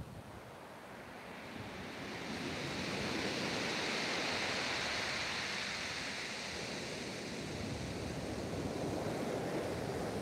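Surf breaking and washing over a shingle beach: a steady wash that swells into a loud hiss a couple of seconds in, eases, and builds again near the end, with some wind on the microphone.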